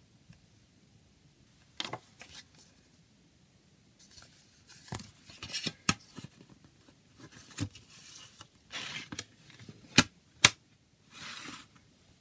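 Paper CD booklet rustling and sliding as it is put back into a plastic jewel case, with scrapes and sharp plastic clicks as the case is handled and shut; two clicks near the end are the loudest.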